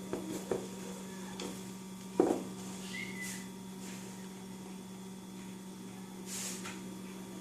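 Light knocks and a soft thump about two seconds in, from a PVC pipe being handled against a cardboard box lid while it is marked around, over a steady low hum.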